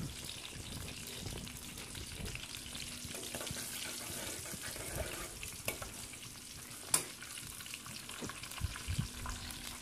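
Ginger-garlic paste and cumin seeds sizzling steadily in hot oil in a pan, frying toward golden brown. A few sharp clicks from stirring, the sharpest about seven seconds in.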